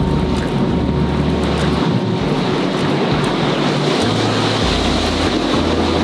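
Wind rumbling on the microphone over a wood campfire burning, with a few sharp crackling pops from the burning firewood.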